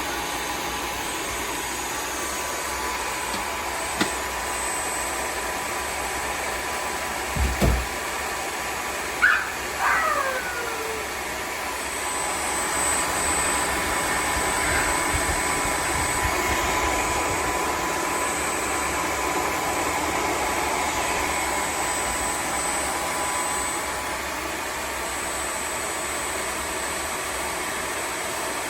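Tineco Floor ONE S5 cordless wet-dry vacuum running its self-cleaning cycle, a steady motor whir with a thin constant whine. There are a few knocks and a falling whine a third of the way through, and the running grows a little louder in the middle.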